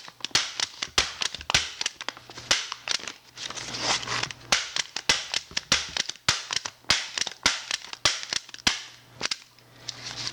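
MAX HD-50F half-strip, flat-clinch stapler being pressed again and again, driving staples through sheets of paper with a quick series of sharp snapping clacks, about two or three a second, mixed with paper rustling.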